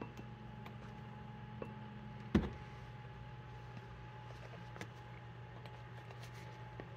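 A single sharp knock about two and a half seconds in and a few faint clicks, over a steady low hum.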